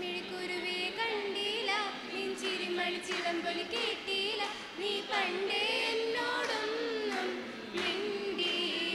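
A mixed group of young women and men singing a song together into stage microphones.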